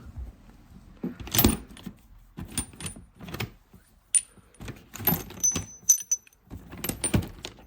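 Loose steel sockets clinking and clattering against one another as they are picked out of a box and set down: a series of sharp metal clinks, several ringing briefly.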